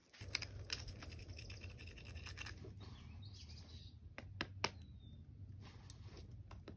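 Climber's hands and shoes scraping and tapping on the rock face: a handful of scattered scuffs and clicks over a low steady rumble. There is a short bird chirp about five seconds in.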